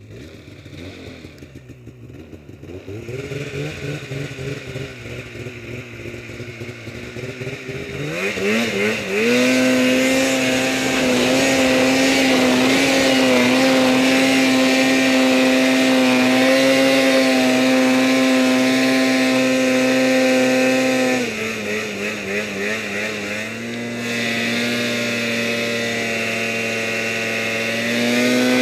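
Polaris Pro RMK snowmobile's two-stroke engine, running quietly at first, then revving hard about eight seconds in and held at high revs while climbing through deep snow. About three-quarters of the way through the revs drop to a lower steady note, rising a little again near the end.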